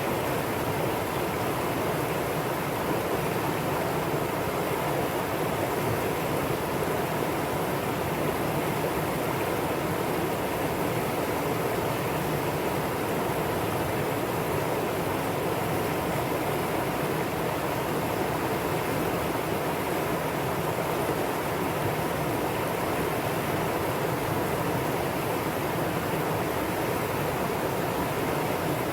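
Mountain stream rushing over rocks, a steady, even flow of water.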